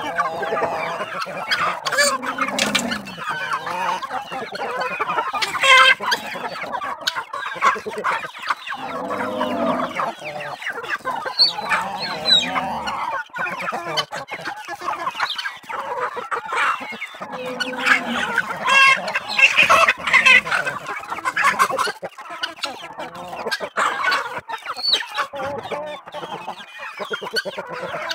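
A mixed flock of chickens and helmeted guineafowl clucking and calling, many birds at once, the calls overlapping continuously.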